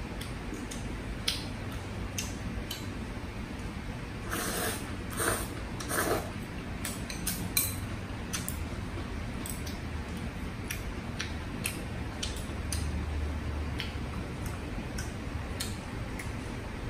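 Eating sounds: chopsticks clicking against a small bowl, with a few loud slurps of Korean noodles about four to six seconds in, over a steady low hum.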